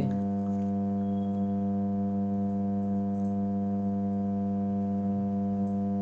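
Rewound microwave oven transformer humming steadily while powered from 220 V mains, a low, even hum with a row of higher overtones above it.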